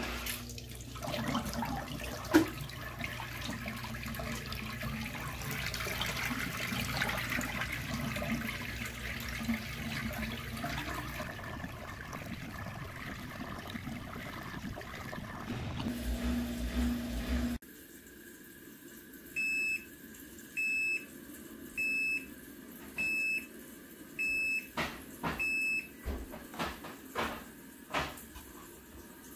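Magic Chef portable washer draining through its hose into a sink: a steady hum under the rush of water pouring into the basin and down the drain. After a sudden cut about two-thirds of the way through, the washer's control panel gives about seven short beeps roughly a second apart, followed by a few clicks.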